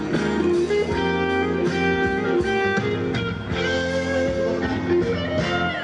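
Instrumental break of a Thai pop song, guitar-led band music with sustained chords and melody notes, between sung verses.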